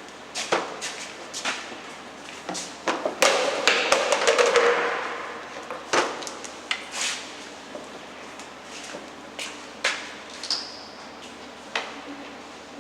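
Pipe fittings being handled and pushed together: scattered knocks and clacks, with a longer scraping rattle about three to five seconds in.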